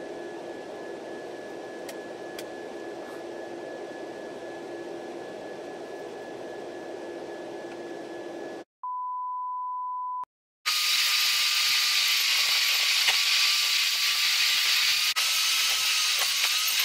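Steady jet airliner cabin noise with a faint constant hum as the plane descends over the city. It cuts off about eight and a half seconds in. A steady beep of about one and a half seconds follows, then louder hissing road and wind noise from a moving vehicle with a faint wavering whine.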